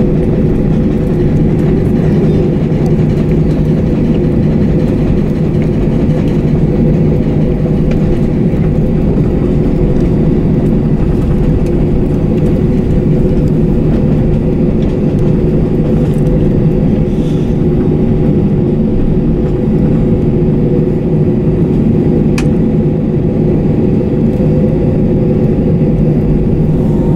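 Steady cabin noise inside an Airbus A321-232 taxiing after landing: its IAE V2500 engines run at idle under the air-conditioning hiss, giving a constant drone with several steady humming tones. A single short click comes about 22 seconds in.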